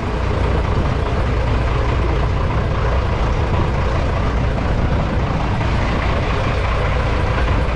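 Fishing boat's engine running steadily with a low hum, under a constant rushing noise.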